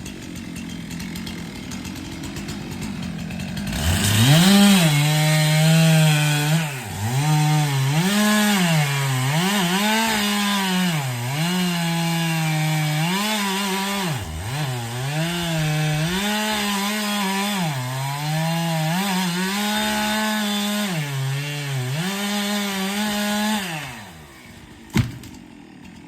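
Stihl chainsaw cutting through wood at full throttle for about twenty seconds, its engine pitch dipping and recovering every second or two as the chain bogs in the cut. It follows a few seconds of quieter running and drops away near the end, followed by a single knock.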